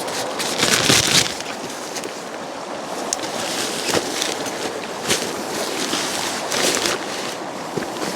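Continuous rushing water with wind gusting on the microphone, swelling louder about a second in and again near the end.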